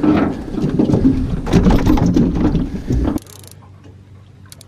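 Rumbling, rustling noise on the microphone, with knocks, that cuts off suddenly a little over three seconds in, leaving a faint low hum.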